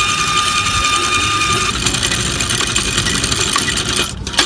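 Electric anchor windlass running anchor chain over the bow roller: a steady high motor whine that drops out a little under two seconds in, over a continuous metallic chain clatter, with a few sharp clanks near the end.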